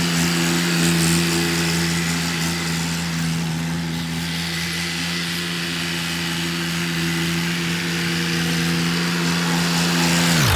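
Tractor engine running at a steady speed with an even hum.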